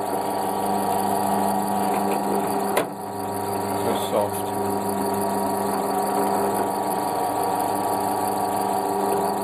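Bench drill press running with a steady motor hum while holes are drilled in MDF; a single sharp knock about three seconds in.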